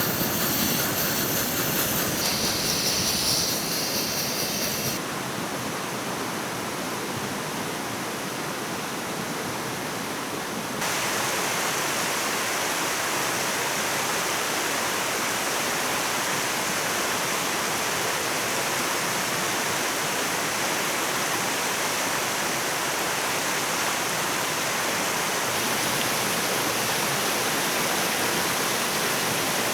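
Steady rushing noise like running water, a little quieter from about five seconds in and stepping back up near eleven seconds.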